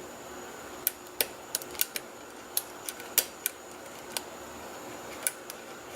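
Lock pick clicking against the pin stacks of an ERA rim cylinder as it is picked under tension: about a dozen sharp, irregular metal clicks and ticks.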